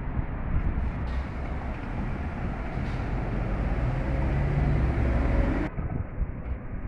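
A vehicle running with a steady low rumble and a faint rising whine, which stops abruptly near the end.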